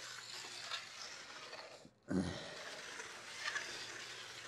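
Handheld 88-degree snowboard edge bevel tool filing along a steel edge, a continuous rasping scrape that breaks off briefly about two seconds in and resumes with a short low sound.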